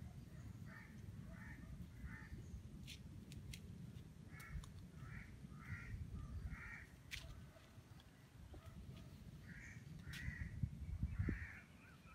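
Crows cawing in runs of short repeated calls, over a faint low rumble, with a few sharp clicks.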